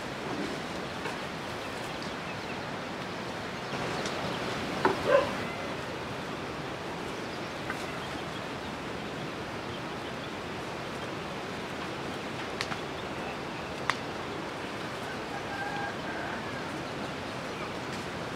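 Steady outdoor background noise, with a brief pitched call about five seconds in, a few sharp taps later on, and a faint higher call near the end.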